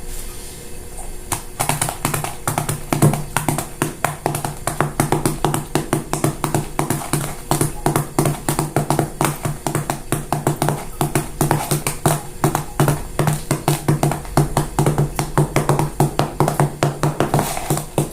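A fast, even run of sharp taps, several a second, over a low pulsing tone.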